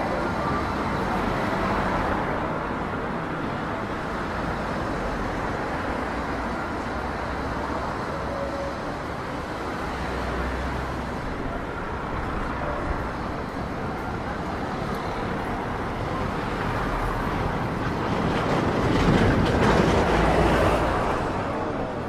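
Traffic on a busy city street: cars driving past close by over a steady wash of road noise, swelling louder for a couple of seconds near the end.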